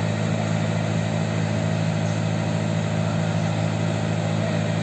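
Rice combine harvester engine running steadily, a constant low hum that does not change in pitch or level.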